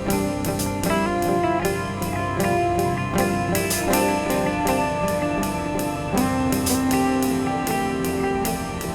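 Instrumental band music with no singing: guitar over a drum kit keeping a steady beat.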